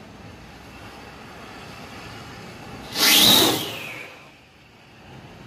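Coke Sky Whistling firework rocket lifting off: a faint fuse fizz, then about three seconds in a sudden loud whoosh with a whistle falling in pitch that fades away within about a second and a half as the rocket climbs.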